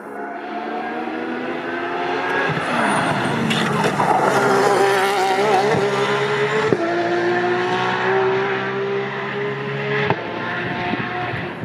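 Racing car engine at full throttle, its note climbing steadily and dropping abruptly at an upshift about two-thirds of the way through and again near the end.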